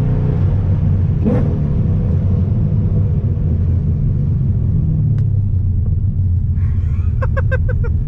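Nissan 350Z's 3.5-litre V6 engine and exhaust rumbling low and steady, heard from inside the cabin while the car is driven.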